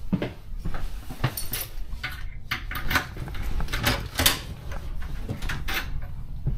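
A run of irregular knocks and clicks from doors, fittings and footsteps being handled and walked, over a steady low rumble.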